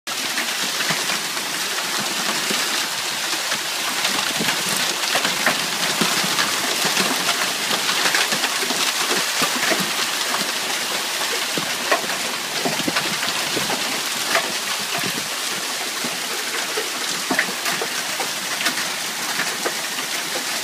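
Heavy downpour: a steady hiss of rain, with water streaming off the porch roof edge and frequent sharp taps scattered through it.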